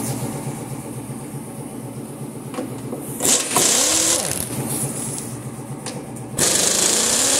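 Impact wrench spinning off the bolts on a conveyor's side plate in two short, harsh bursts, about three seconds in and again near the end. A steady machine hum runs underneath.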